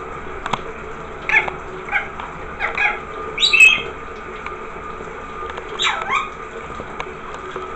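Rainbow lorikeet giving about five short squawking calls that slide down in pitch, the loudest and highest about three and a half seconds in, while it bathes under a running shower. A steady hiss of falling water runs beneath.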